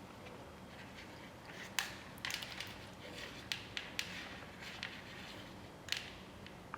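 Scattered sharp clicks and light knocks, about eight in all, some close together, over a low steady room hiss.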